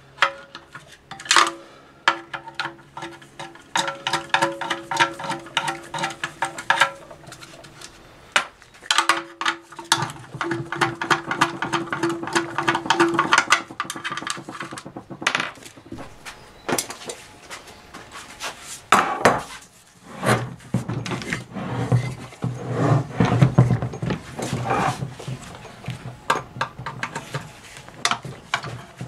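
Speed brace spinning out the bolts of a Ford 5R55S automatic transmission's steel oil pan: rapid metallic clicking and rattling of the socket and brace, with a few louder knocks.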